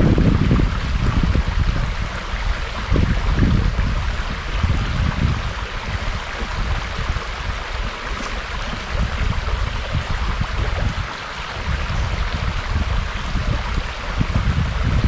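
Steady rush of running water, with an uneven low rumble of wind buffeting the microphone that swells and fades, strongest near the start and near the end.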